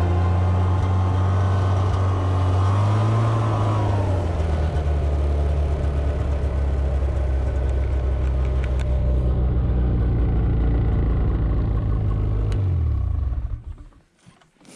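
Ski-Doo Tundra snowmobile engine running steadily while riding, its pitch dipping and coming back up about three to four seconds in. Near the end the revs fall away and the engine goes quiet.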